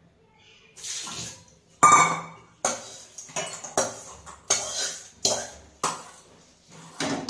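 Metal spatula scraping and knocking against a steel wok while stirring food: a softer scrape about a second in, then a string of sharp clanks and scrapes, roughly one to two a second, the first the loudest.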